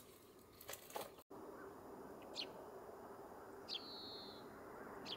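Faint small-bird calls: three short, high chirps spaced more than a second apart, the second one running into a brief held whistle, over a faint steady outdoor hush. A couple of soft clinks come in the first second.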